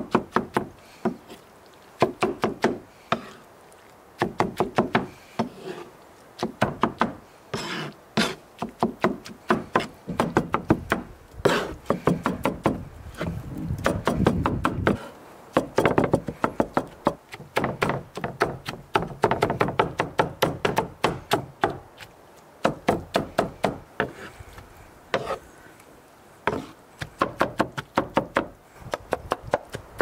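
Knife chopping food on a wooden cutting board: quick runs of sharp knocks, about four a second, broken by short pauses.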